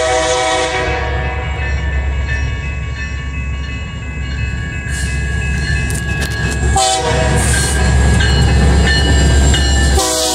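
BNSF diesel freight locomotives passing close by with a heavy low engine rumble. A multi-note air horn sounds in the first second, briefly again about seven seconds in, and once more at the very end.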